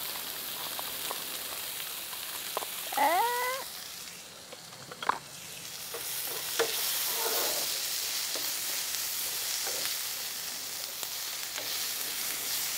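Chopped red onions sizzling in hot oil in a frying pan just after going in, stirred with a spatula that clicks against the pan now and then. The sizzle eases for a second or two around four seconds in and then picks up again, and a short rising whine sounds about three seconds in.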